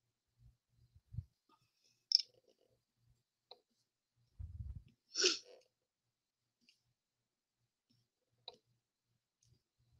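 Clear acrylic stamp block handled and pressed down by hand onto card stock: a few light clicks and taps, a low knock about a second in, a low rumble of hands bearing down, and a short hiss just after the middle.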